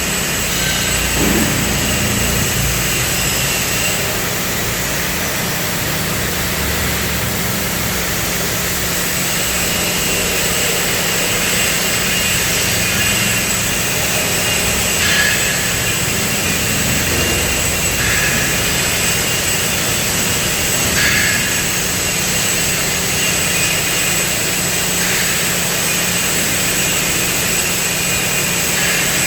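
CNC cutting machine's torch running: a loud, steady roar and hiss over a constant low hum, with faint short high squeaks about every three seconds in the second half.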